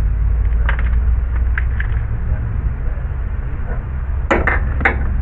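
Engine parts being handled during reassembly: a few light clicks, then a cluster of sharper knocks near the end, over a steady low rumble.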